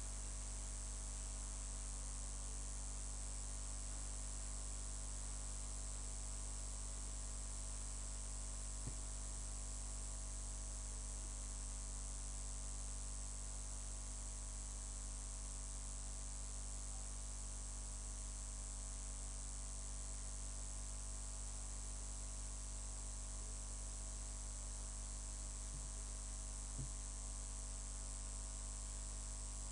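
Steady electrical mains hum and buzz with a thin, high, constant whine and hiss, from a live microphone and sound system. Two faint knocks come through, about nine seconds in and near the end.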